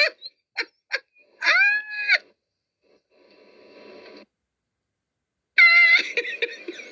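A woman's high-pitched laughter in short gasping bursts and a drawn-out squeal, then a faint breathy stretch and about a second of silence, before loud laughing starts again near the end.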